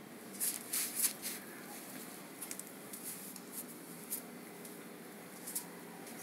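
Handling noise from a handheld camera: fingers rubbing and shifting on the body, making a cluster of rustling clicks about half a second in, then scattered ticks, over faint steady room hiss.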